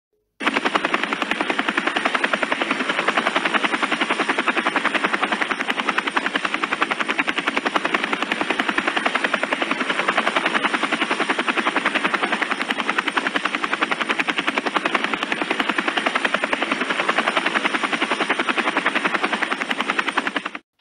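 Helicopter sound effect: a steady, rapid chop of rotor blades with a thin high whine above it, running evenly and cutting off suddenly near the end.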